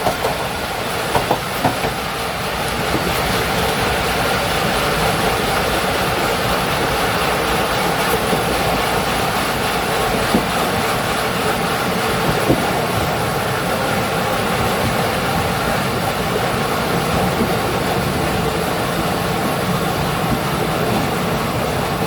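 Train undercarriage running with a steady rumble and rattle, with a few sharp clicks in the first two seconds and an isolated knock about ten and twelve seconds in.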